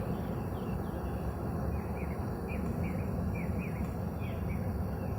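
A small bird calling in a run of short, falling chirps, about two a second, starting a little under two seconds in, over a steady low rumble.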